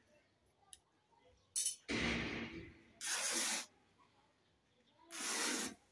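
Three loud swishing, rustling bursts from a large piece of fabric being cut and handled, each about half a second long, with a short sharp click just before the first.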